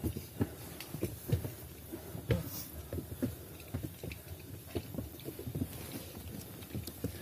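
Footsteps on a mountain trail: irregular soft thuds and scuffs, a few a second.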